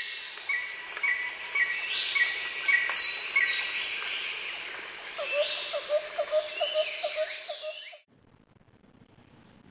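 Nature ambience of birds chirping and calling over a dense, high insect chorus, with a lower rapid trill joining in over the last few seconds. It cuts off suddenly about eight seconds in.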